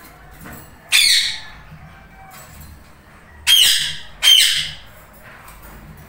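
Indian ringneck parakeets giving three loud, harsh squawks: one about a second in, then two in quick succession a couple of seconds later.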